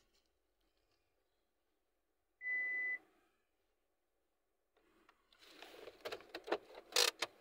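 A single electronic beep, one steady high tone lasting about half a second. A few seconds later come rustling and a string of sharp clicks and knocks, loudest near the end, as the phone and seat are handled inside the car.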